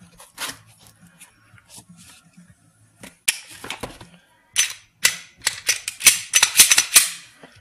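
Sharp clicks and clacks of a Smith & Wesson M&P 9mm pistol being lifted from its hard foam case and handled, a few at first and then a quick run of them over the last few seconds.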